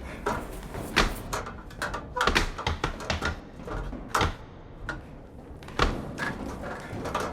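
Foley impact sounds: an irregular run of sharp knocks, taps and thuds, with heavier hits about one, two, four and six seconds in.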